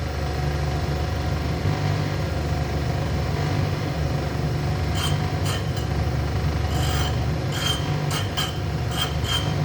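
Connecting-rod cap grinder running with a steady motor hum, and from about five seconds in, a series of short grinding rasps as the abrasive wheel is walked across the rod's parting face to take about a thousandth off.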